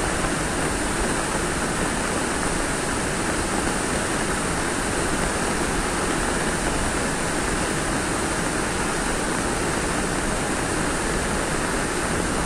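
Flash-flood torrent of muddy water rushing steadily past, a dense, unbroken wash of water noise.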